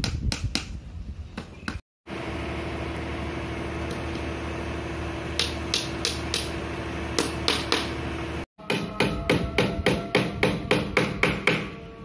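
Claw hammer tapping small nails into a wooden frame holding wire mesh: quick runs of sharp strikes, about four a second near the end, broken by two abrupt cuts, with a steady background hum in the middle stretch.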